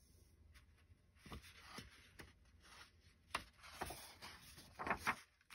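Picture-book pages being turned by hand: paper rustling and sliding, with several short soft taps and flaps, the sharpest about three and a half seconds in and again near the end.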